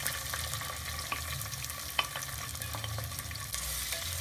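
Sliced onions frying in hot oil in a metal pot, a steady sizzle, stirred with a wooden spoon, with a few sharp clicks along the way.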